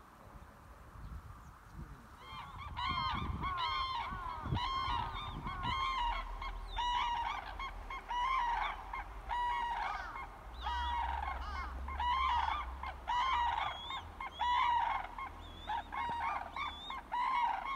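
Red-crowned cranes calling: a long run of loud, trumpeting calls starting about two seconds in, several birds overlapping.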